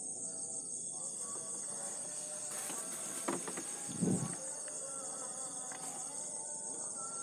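Night chorus of crickets and other insects: a steady high-pitched shrill. A short low thump comes about four seconds in, just after a few faint clicks.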